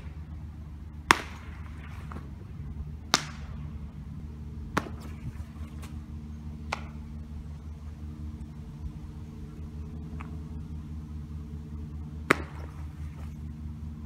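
Sharp pops of a baseball smacking into a catcher's mitt, several seconds apart, the loudest about a second in, over a steady low hum.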